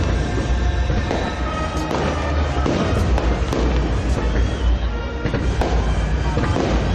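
Fireworks display going off in rapid succession: many sharp bangs and crackles over continuous deep booming.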